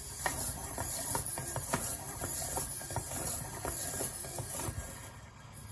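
Tomy i-SOBOT toy humanoid robot walking: its small servo motors whir with a high hiss, over a quick, uneven run of clicks and taps from its joints and feet. The clicks thin out in the last second.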